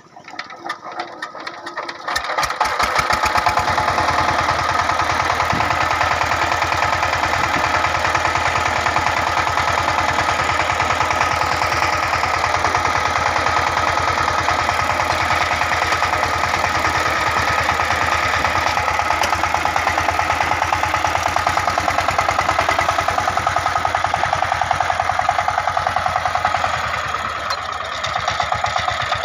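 Single-cylinder diesel engine of a walk-behind power tiller starting: its beats quicken and grow louder over about two seconds as it catches. It then runs with a steady, fast chugging beat, dipping briefly near the end.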